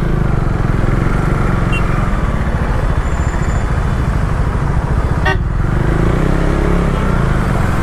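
KTM Duke 390's single-cylinder engine running as the bike pulls away, its pitch shifting with the throttle, with wind rushing over the microphone. A short horn toot sounds about five seconds in.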